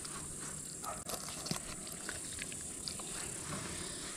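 Steady high-pitched insect chorus, with a few faint clicks over it.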